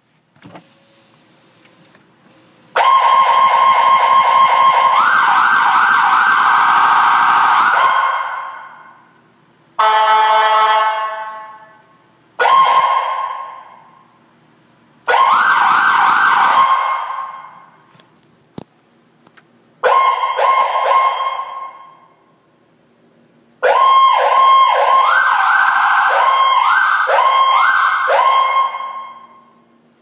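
A 2013 First Priority ambulance's electronic siren sounds in six separate bursts, switching through different tones. The first is a long steady tone that steps up in pitch partway through. About ten seconds in comes a lower, buzzier blast, then several short chirps. The last bursts are fast warbling tones, with a long warbling run near the end. Each burst stops abruptly and trails off in an echo.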